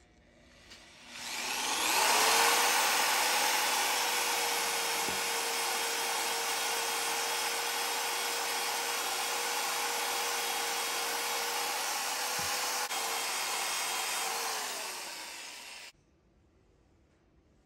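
Electric drill spinning a wire wheel brush against the ribbed cast-iron side of a Jøtul 602 wood stove, scrubbing off rust: a steady motor whine with a scratching hiss. The motor spins up about a second in and winds down to a stop near the end.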